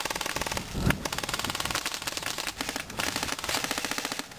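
Airsoft electric guns firing on full auto: a fast, even rattle of shots, broken by short pauses between bursts, with a low thump about a second in.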